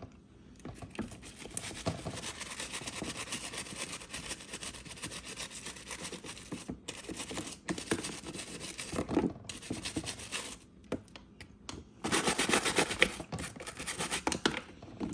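Bottle brush scrubbing the inside of a dishwasher in quick scratchy strokes, with a short lull about two thirds through before it goes on louder.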